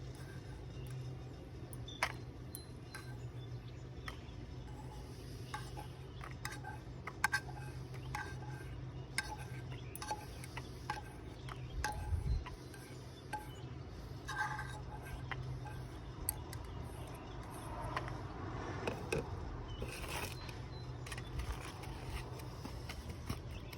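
Scattered light clicks and clinks of a fork against a pan and plate as browned maple seeds are dished up, over a steady low hum.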